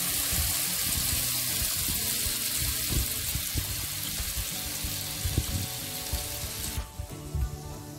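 Tomato puree and peri peri sauce sizzling as they hit hot oil with fried onion and garlic in a frying pan: a steady hiss that drops away suddenly about seven seconds in.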